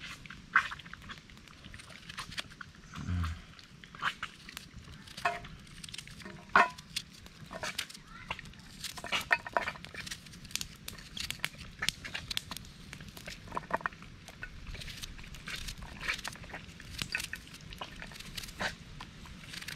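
Knife slicing a red onion held in the hand, a series of irregular crisp cuts, with the slices dropping onto a steel plate. A brief low sound about three seconds in.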